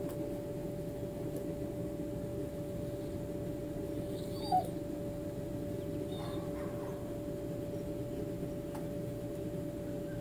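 A dog gives one short, high whimper about halfway through, over a steady hum with a constant tone.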